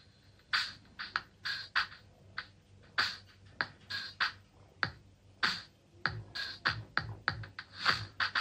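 Song's percussion track played from a phone through a home-built single-NPN-transistor amplifier into a bare woofer. It is a quick pattern of sharp hits, and a deep kick drum that drops in pitch joins about six seconds in.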